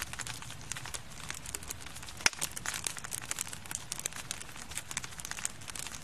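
Wood campfire crackling, a steady stream of small snaps and pops, with one louder sharp pop a little over two seconds in.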